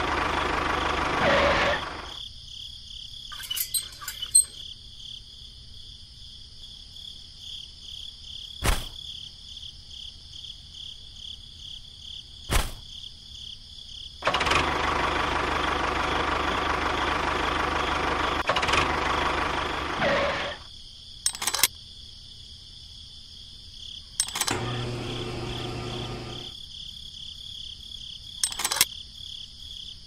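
Small motor of a miniature model tractor running in stretches that cut off abruptly. Between them are quieter gaps with a few sharp clicks and a short, steady low hum.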